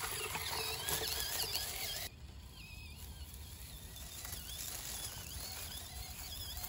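Axial SCX24 1/24-scale RC crawler's small electric motor and gears whining, the high pitch wavering up and down with the throttle, over a rustle of tyres crawling through dry leaves. The sound drops suddenly about two seconds in.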